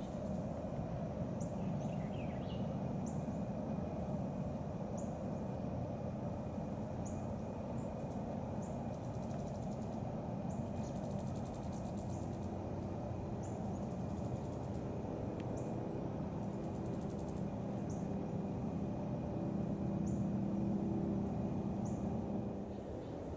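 Outdoor ambience: a steady low rumble, with short high chirps repeating every second or two, a faint steady high whine, and a brief buzzing trill about eleven seconds in.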